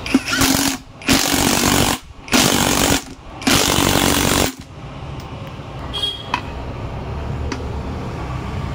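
Cordless impact wrench hammering the magneto flywheel nut tight onto the engine's crankshaft, in four bursts of under a second each, the last the longest.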